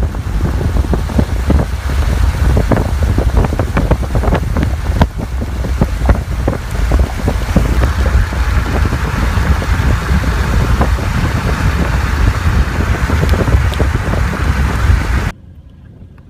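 Strong wind buffeting the microphone: a loud, deep rumble with rapid crackles, cutting off abruptly about a second before the end.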